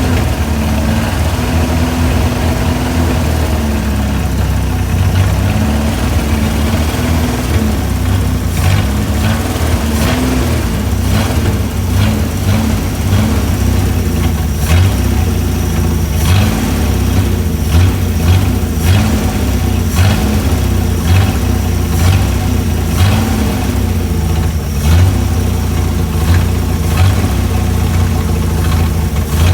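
Chrysler Hemi 265 straight-six idling, its pitch wavering slightly up and down while the idle is being set. Irregular sharp ticks sound over it from about a third of the way in.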